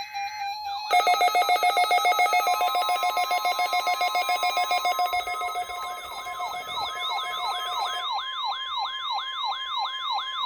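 NOAA Weather Radio test alert: the steady 1050 Hz warning alarm tone starts about two seconds in and holds, layered with electronic siren alarms. A fast pulsing alarm runs until about three-quarters of the way through, and a repeating rising whoop, about two a second, takes over in the second half.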